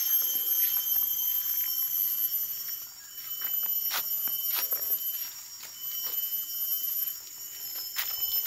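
Steady high-pitched insect drone, several shrill tones held together, typical of tropical forest insects, with scattered rustling footsteps through grass and dry leaves.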